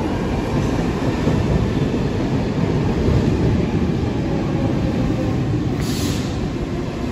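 Stockholm metro C14 train pulling into an underground station, a steady rumble of wheels and motors as it runs slowly along the platform. A brief hiss comes near the end.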